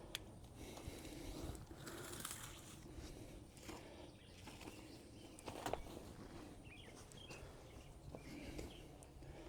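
Faint rustling and scattered light clicks and knocks of someone working by hand, with a few faint bird chirps.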